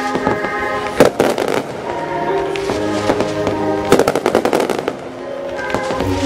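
Fireworks display firing: sharp reports, with a bang about a second in and a rapid machine-gun-like volley around four seconds in, over show music with held notes.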